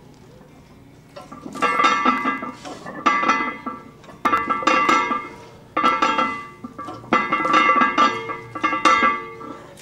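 Iron barbell plates clinking and ringing on the bar sleeves with each bench-press rep: a ringing metallic clank about every second and a half that dies away, beginning about a second in.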